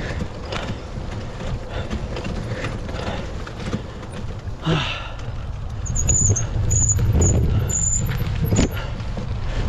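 Mountain bike ridden along a dirt trail, heard from a camera on the rider: a steady low rumble with many rattles and clicks from the bike over the ground. A run of short high squeaks comes in the second half.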